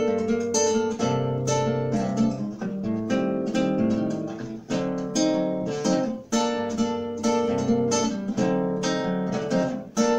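Classical (nylon-string) guitar playing a steady run of chords as an instrumental introduction, before the vocal comes in.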